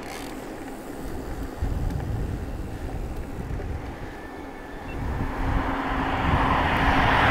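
Wind gusting on the microphone. From about five seconds in, a motor vehicle approaches: its engine hum and tyre noise grow steadily louder toward the end.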